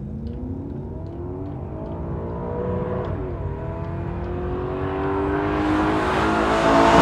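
A car engine accelerating: its pitch rises, drops briefly about three seconds in as at a gear change, then climbs again while it grows steadily louder.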